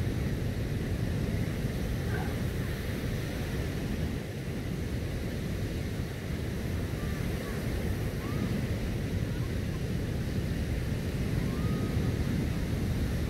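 Steady wind rumbling on the microphone over the wash of surf on a sandy beach, with a few faint, short distant calls.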